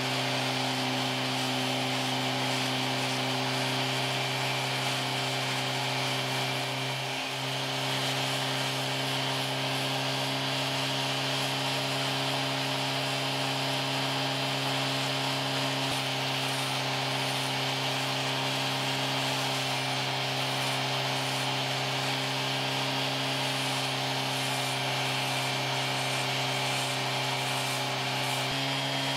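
Dremel-type rotary tool running steadily, its diamond burr grinding into wet Welsh slate: a constant motor hum under a gritty grinding hiss.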